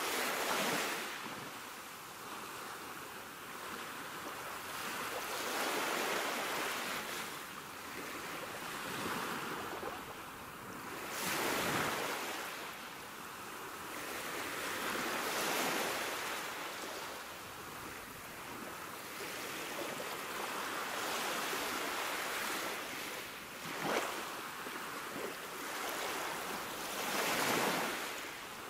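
Sea waves washing in, a rushing hiss that swells and falls back in surges every few seconds.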